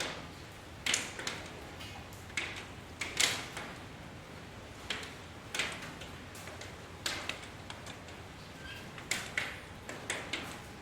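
Rain drops tapping sharply and irregularly on a hard surface, two or three taps a second, over a soft steady hiss.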